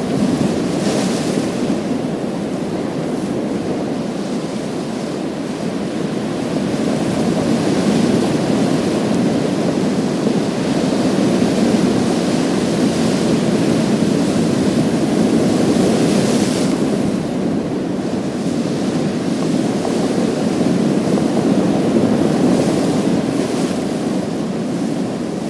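Waves breaking on a pebble beach, the surf a continuous rush that swells and eases every few seconds, with brighter hissing surges about a second in and again around the middle.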